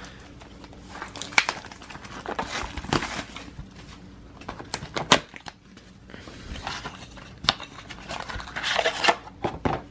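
Plastic wrapping crinkling and tearing, with scattered clicks and rustles of cardboard being handled, as a sealed trading-card hobby box is opened. The rustling is loudest near the end.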